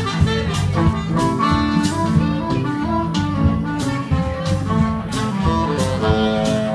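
Live blues band playing an instrumental break: drums, bass and electric guitar keeping a steady groove under a saxophone lead.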